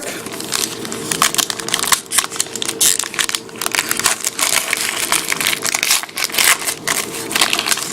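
Trading-card pack wrapper crinkling and crackling as it is opened and handled, with the cards being pulled out.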